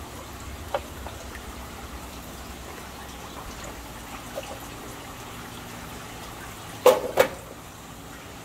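Aquarium water trickling steadily, with two sharp, loud sounds a third of a second apart about seven seconds in.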